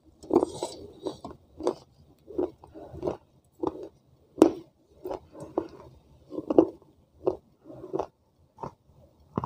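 Chewing and crunching a mouthful of wet clay from a clay pot, in short crisp crunches about two a second, with one sharper, louder crunch about halfway through.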